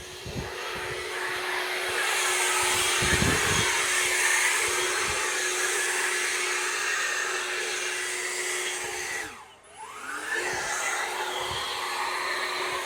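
Pressure washer running and spraying: a steady hiss of water with the machine's hum underneath. About nine and a half seconds in it briefly cuts out, the pitch sagging and then climbing back as it picks up again.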